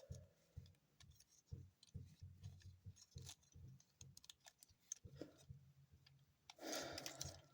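Faint, scattered clicks and taps of plastic parts of a transforming toy robot figure being handled and moved, with a short louder hiss near the end.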